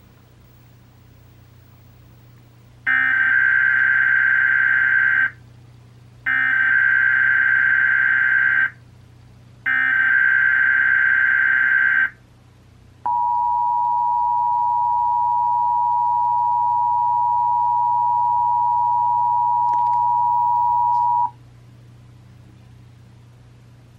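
Emergency Alert System SAME header: three bursts of buzzy digital data screech, each about two and a half seconds, then the EAS two-tone attention signal held steady for about eight seconds. Together they open a Required Monthly Test alert.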